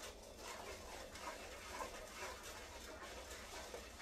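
A spoon stirring and scraping thick peanut butter fudge mixture around a saucepan in an uneven run of rubbing strokes, working the not-yet-melted butter into it.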